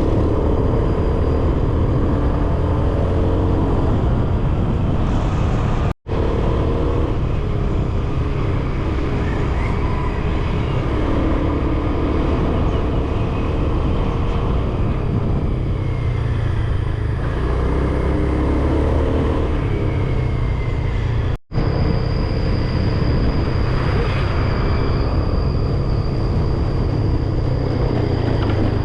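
Motor scooter engine running on the move, its pitch rising and falling with the throttle, under steady low wind rumble on the microphone. The sound drops out briefly twice, about six seconds in and again about two-thirds of the way through.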